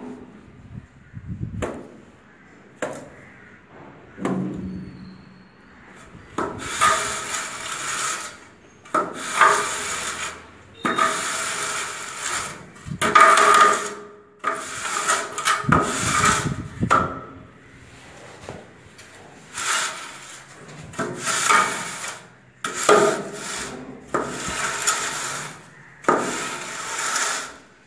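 Wooden straightedge scraped across a bed of sand-cement mortar, levelling the screed for floor tiles. It is a string of scraping strokes about a second long each, coming roughly every one to two seconds. The first few seconds are quieter.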